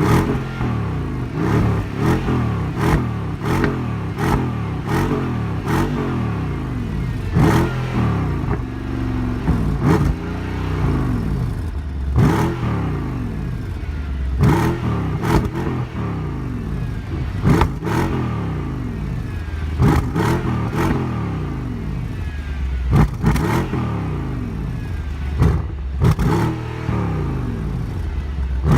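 High-performance car engine revved over and over, its pitch sweeping up and falling back many times, with sharp cracks from the exhaust between revs.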